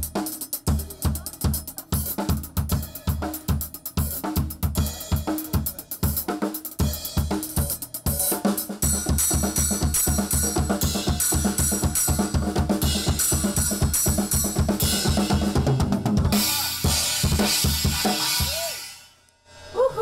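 Drum kit played fast, with rapid bass drum and snare strokes under cymbals. About sixteen seconds in, the beat gives way to a long crash-cymbal wash that dies away near the end.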